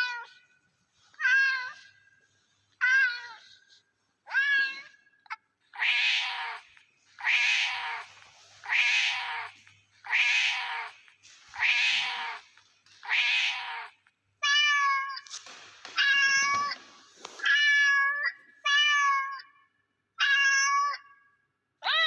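Cat meowing over and over: about fifteen separate meows, roughly one every second and a half. The meows in the middle stretch are harsher and breathier, and the later ones are clearer.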